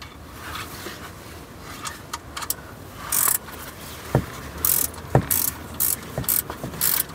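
Ratchet spanner clicking as it is swung back and forth, backing a thread tap out of a freshly cut drain-plug thread. The clicking is faint at first, then comes in sharp runs about twice a second from about three seconds in, with a couple of duller metal knocks.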